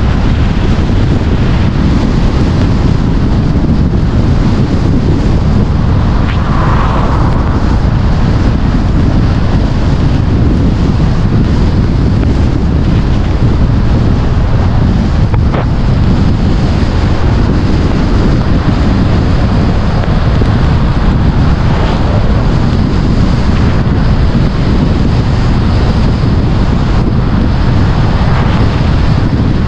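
Heavy wind buffeting on the microphone of a camera riding on a moving car, over steady road noise from the tyres on a wet road. An oncoming car passes near the end.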